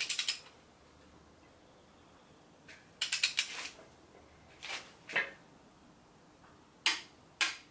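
A ratcheting torque wrench clicking in short quick runs, with single sharp clicks between them, as head-stud nuts are tightened to 35 foot-pounds, the first of three torque steps.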